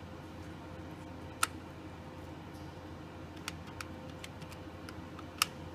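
Buttons pressed on a Fanuc CNC control's MDI keypad: about eight short, separate key clicks at uneven intervals, the loudest about a second and a half in and near the end. A steady low hum runs underneath.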